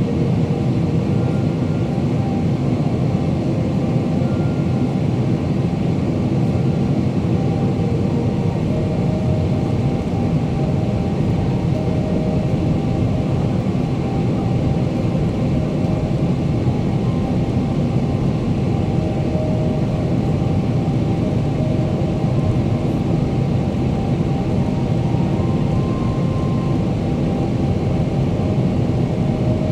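Steady in-flight cabin noise of a Boeing 777-300ER: a deep rush of airflow with the hum of its GE90 engines, faint steady tones drifting in and out above it.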